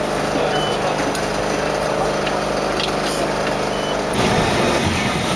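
Lisbon electric tram running, heard on board: a steady electric hum over running noise, turning into a louder, rougher rumble of wheels on the rails about four seconds in.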